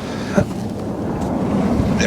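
Steady wind noise on the microphone, with one brief sharper sound about half a second in.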